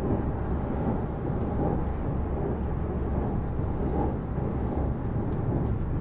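Steady low rumble of an E259 series Narita Express train running at speed, heard from inside the passenger cabin as it crosses a steel truss bridge.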